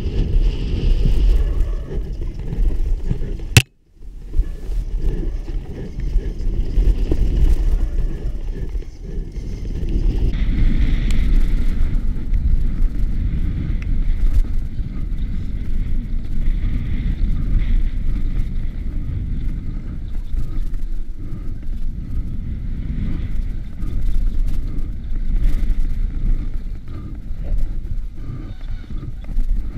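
Wind buffeting a helmet-mounted camera's microphone over the rumble and rattle of a mountain bike descending a rough dirt trail at speed. Just under four seconds in, a sharp click and then the sound cuts out for a moment before the rumble returns.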